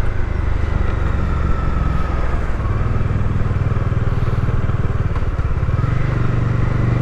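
Bajaj Dominar 400's single-cylinder engine running steadily under way, heard from inside the rider's helmet through a cheek-pad lav mic, with the engine note rising a little about six seconds in.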